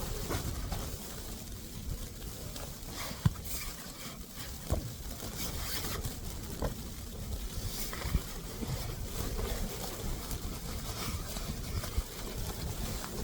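Blizzard wind buffeting the microphone, a steady low rumble with hiss, broken by scattered short knocks and rustles.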